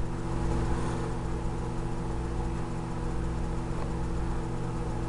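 Hamilton Beach microwave oven running with breakfast sandwiches inside: a steady, even hum with a whir.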